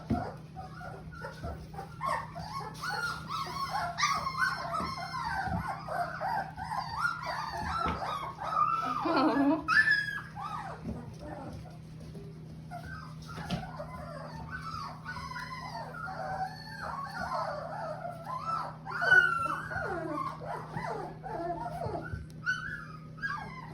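A litter of 17-day-old puppies whimpering and squealing over one another: many short, wavering high cries from several pups at once. A steady low hum runs underneath.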